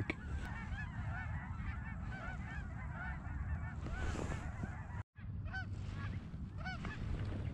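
A flock of geese calling overhead, many short overlapping honking calls, with a brief break in the sound about five seconds in.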